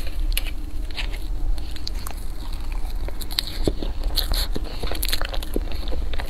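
Close-miked eating sounds: a metal spoon cutting and scooping soft mousse cake on a plastic tray, then mouth sounds of biting and chewing, heard as a run of small irregular clicks and taps.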